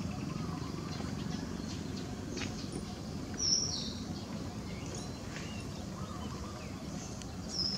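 Two short high-pitched animal chirps, the first about three and a half seconds in and the second near the end, each dropping slightly in pitch, over steady outdoor background noise.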